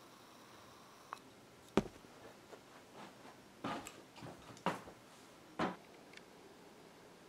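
A few scattered soft knocks and handling sounds in a quiet room, about five in all, as small household things such as a glass candle jar are moved and set down.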